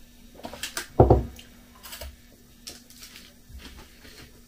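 Small eating-and-drinking noises at a table: a low thump about a second in, then a few faint scattered clicks and rustles.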